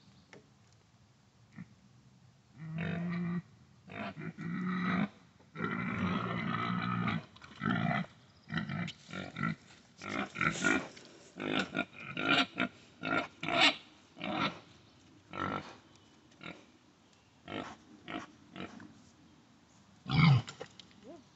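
Pigs grunting: a few low grunts starting a few seconds in, then a long string of short grunts, with a louder one near the end.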